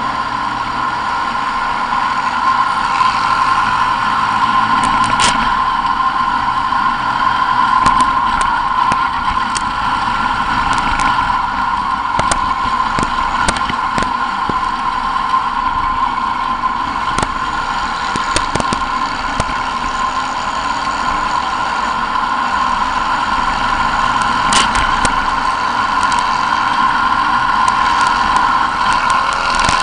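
Kart-cross racing buggy's engine heard onboard, running hard at a steady high pitch, with scattered sharp knocks and rattles.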